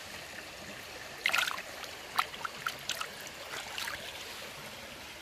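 Shallow stream running over stones, with several small splashes and drips as a hand in the water lets go of a fish. The loudest splashes come about a second in and again about two seconds in.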